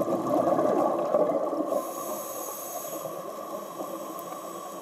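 Scuba diver's exhaled bubbles rushing out of the regulator for about the first second and a half, then a steady underwater hiss.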